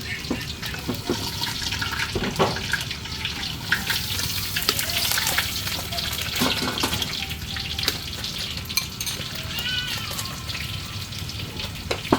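Pork sizzling as it is stir-fried in a pan, a steady crackling hiss, with scattered clicks and scrapes of a spatula against the pan.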